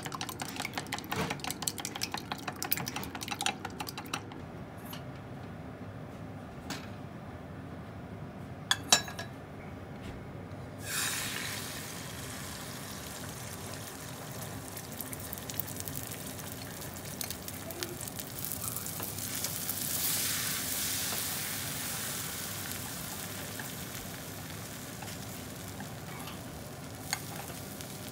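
Wooden chopsticks rapidly beating eggs in a glass measuring jug, a quick run of clicks against the glass. About eleven seconds in, the beaten egg goes into a hot frying pan and sizzles steadily, swelling louder partway through as it is stirred.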